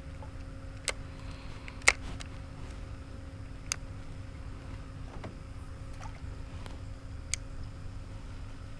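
Electric trolling motor humming steadily, with a faint steady tone, and four sharp knocks from gear handled in the boat, the loudest about two seconds in.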